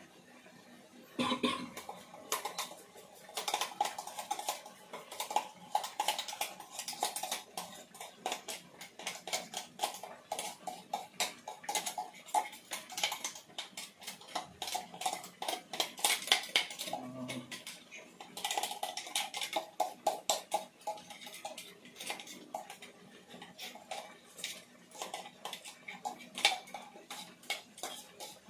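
A metal spatula stirring and scraping chicken masala in a metal kadai, knocking against the pan in a quick, irregular clatter that starts about a second in.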